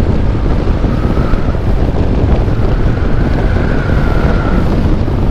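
Heavy wind buffeting on the microphone over a Honda ADV160 scooter's single-cylinder engine and CVT running at full throttle, with a faint whine rising slightly in pitch through the middle as it speeds up.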